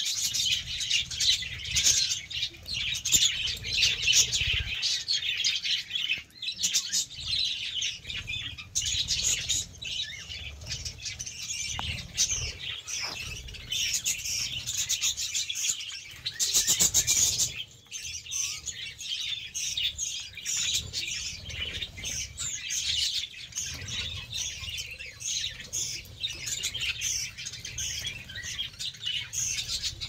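A flock of budgerigars chattering: a dense, unbroken mass of quick chirps and warbles, with wings fluttering now and then as birds fly in and out.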